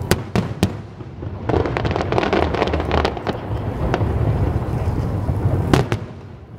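Aerial firework shells bursting at a distance: three sharp bangs in the first second, a stretch of dense crackling from about one and a half to three seconds in, and another bang near the end, over a steady low rumble.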